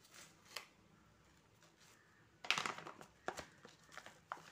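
Plastic packet of jaggery powder being handled, crinkling faintly, with a louder crinkle about two and a half seconds in and a few light clicks and taps after it.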